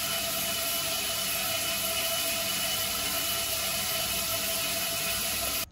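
Water spraying from an overhead rain shower head onto tiled walls, a steady hiss that stops abruptly near the end.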